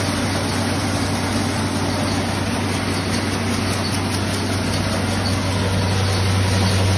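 Heavy-duty wheat cleaning and grinding machine running steadily: a constant low motor hum under a dense rushing noise, growing slightly louder near the end.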